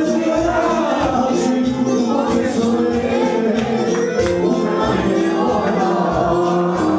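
Music with a steady beat and a group of people singing along together.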